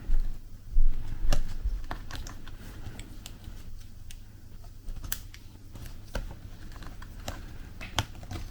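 Light, irregular clicks and taps of fingers and small parts working inside a laptop as the display cable is tucked into its channel, with a few dull bumps in the first second or so.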